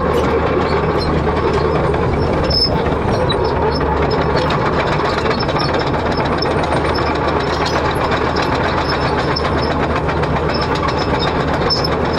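Excavator's diesel engine running steadily, with frequent small metallic clanks and rattles.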